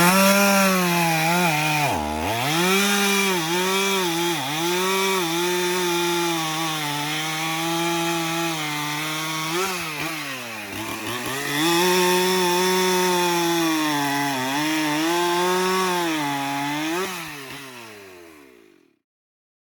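Stihl 044 70cc two-stroke chainsaw running at high revs and cutting wood, its pitch sagging and wavering under load. The revs drop sharply about two seconds in and again about halfway through, then pick back up, and the sound fades out near the end.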